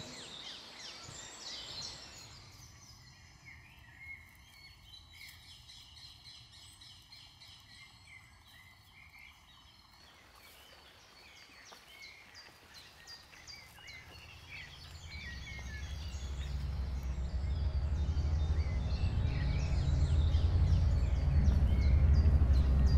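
Birds singing and chirping in woodland. About two-thirds of the way through, a low rumble swells up beneath them and grows until it is the loudest sound.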